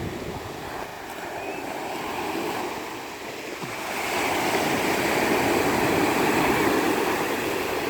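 Ocean waves breaking and washing on the shore, the surf swelling louder about halfway through.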